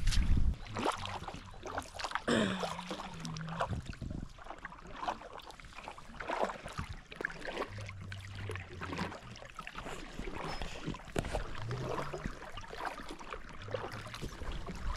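Paddles dipping and splashing as an inflatable boat is paddled along a river, with water trickling off the blades in irregular strokes.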